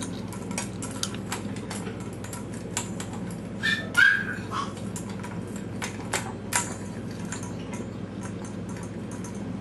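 A pet dog giving a short, high-pitched vocal sound about four seconds in, over a run of scattered light clicks and a steady low hum.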